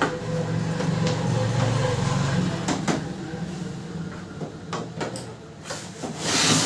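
Handling sounds while the power cable is connected to a Canon imageCLASS MF221d printer: several sharp clicks and knocks, a low hum in the first few seconds, and a louder rustling scrape near the end.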